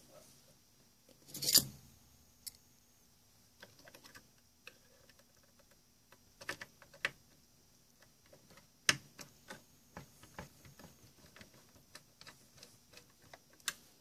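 Scattered clicks, taps and light scrapes of small metal parts being handled as a metal shield is fitted back over a turntable's wiring, with a louder scrape about a second and a half in and a sharp click about nine seconds in.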